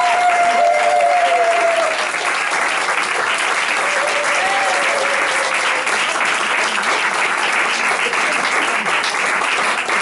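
Audience applauding, dense hand-clapping throughout. A held pitched note sounds over it for the first two seconds, and a shorter one comes around the middle.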